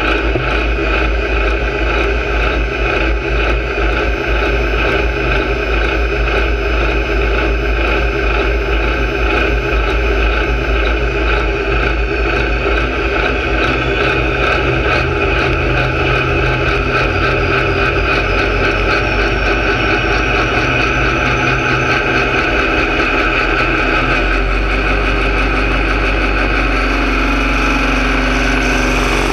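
Pulling tractor's engine running steadily at idle, heard close from the driver's seat as smoke rises from its single vertical stack. A faint high whine climbs slowly through the second half, and the engine note shifts in the last few seconds.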